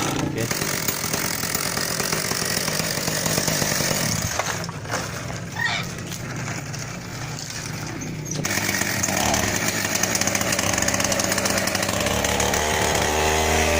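Chainsaw engine fitted to a homemade motorbike, running. It drops lower for a few seconds about a third of the way in, then picks up again.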